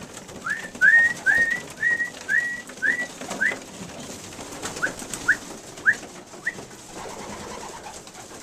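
Young racing pigeon squeaking: a quick run of about eight short, high, rising peeps, then four more after a short pause.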